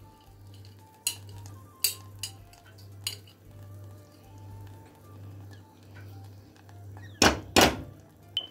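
Utensil clinking and knocking against a metal saucepan while thick palkova (reduced milk fudge) is stirred and a spoon of ghee goes in: a few sharp clicks in the first few seconds, then two loud knocks in quick succession near the end.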